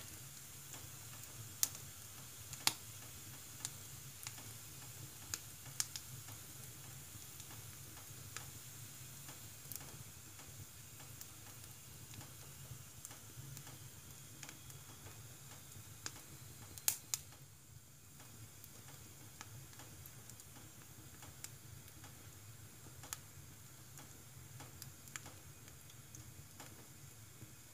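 Wood fire burning in a wood stove, crackling with scattered, irregular sharp pops over a faint steady hiss, a double pop the loudest about two-thirds of the way through.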